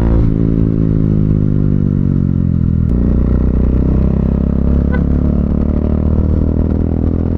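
A Bajaj Dominar UG2's single-cylinder engine running through a Two Brothers slip-on muffler while riding. The revs fall for about three seconds, then the exhaust note steps up and holds steady.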